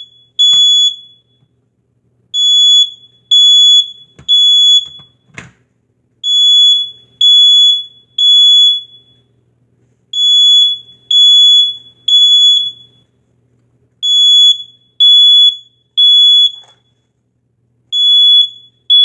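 First Alert photoelectric smoke alarm sounding its high-pitched piercing beep in the three-beep evacuation pattern: three short beeps, a pause of over a second, then three again. The alarm is set off by smoke it is sensing. A few sharp clicks sound in the first several seconds.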